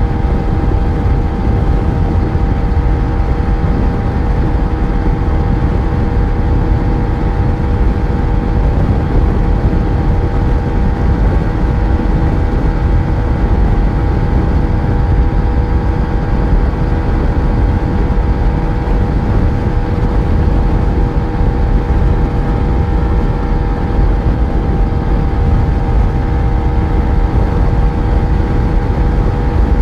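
Yamaha FZ1's inline-four engine running at a steady speed under way, its note holding one pitch throughout, over heavy wind and road rumble.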